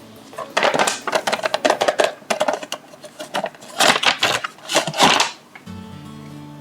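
Crackling and clicking of plastic and cardboard toy packaging being handled and opened, in quick bursts, ending about five seconds in. Background music comes in near the end.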